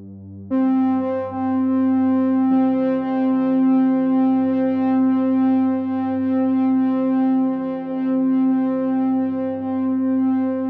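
Background music: sustained synthesizer chords, with a louder chord coming in about half a second in and the harmony shifting about two seconds later.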